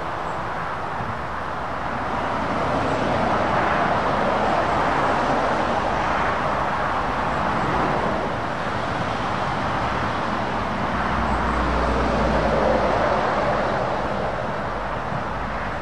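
Road traffic: articulated lorries and cars driving past, a steady rush of tyre and engine noise that swells twice as heavy lorries go by, with a deeper low rumble setting in about two-thirds of the way through.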